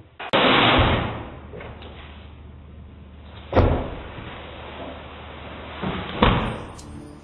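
Three loud bangs, about three seconds apart, each dying away quickly.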